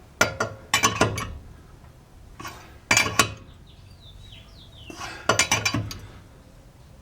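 Small steel parts and hand tools clinking together in four short clusters of sharp metallic clicks, as the washers, lug nut and tools on the wheel-stud job are handled.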